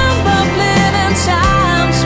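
Background pop-rock song with guitar and a sung melody over a steady beat.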